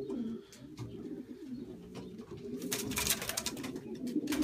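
Many young racing pigeons cooing together in an enclosed loft, a continuous overlapping low cooing. About two and a half seconds in there is a short burst of rustling noise, and a sharp click near the end.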